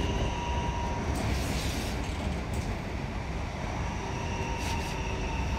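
DART electric commuter train running into a station, heard from inside the carriage: a steady low rumble of wheels on rail with a few steady whining tones and some brief rattles.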